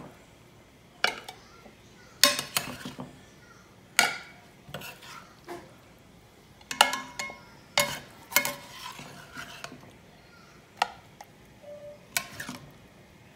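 A metal serving spoon clanking and scraping against a metal pot and a china plate as pieces of braised chicken in sauce are lifted out and laid on the plate. There are about eight sharp clanks, some ringing briefly, with quiet between them.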